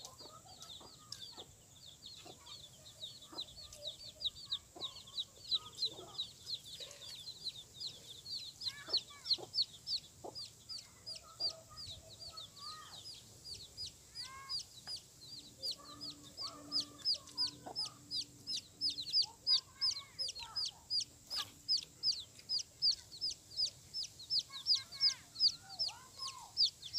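Chickens calling: occasional clucks under a fast, regular string of short, high, falling chirps, about three or four a second, which are the loudest sound throughout.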